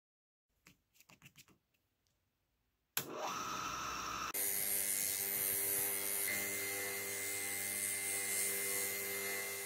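A few faint clicks, then an electric disc grinder switches on about three seconds in with a short rising whine as its motor spins up. From about a second later a rocker arm pad is held against the spinning abrasive disc: a steady hiss of grinding over the motor's hum.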